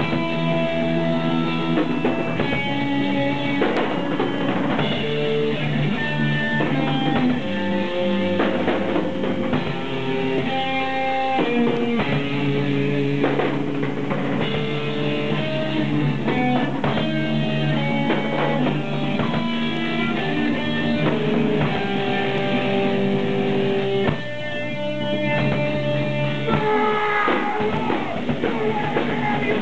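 A live rock band playing a song: electric guitars and a drum kit, kicking in abruptly at the start. The band drops back briefly near the end, then comes back in full.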